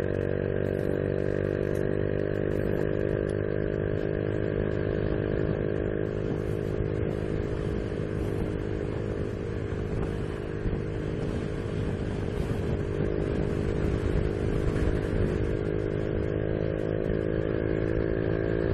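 Honda Biz 125's single-cylinder four-stroke engine running at a steady speed on the move, its pitch holding nearly constant, with wind hiss over the microphone that rises and falls.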